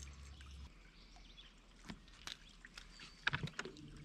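Faint scattered clicks and ticks of a spinning rod and reel being handled after a cast, loudest in a quick cluster a little over three seconds in. A low steady hum begins near the end.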